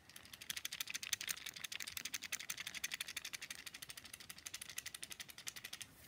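Fidget cube being shaken, the little loose metal cube hidden inside it rattling in a fast, even run of clicks.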